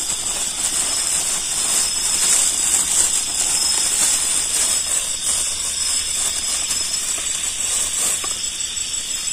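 Thin plastic bag crinkling and rustling as it is handled and twisted shut around a hornet nest. A steady high-pitched chorus of night insects runs behind it.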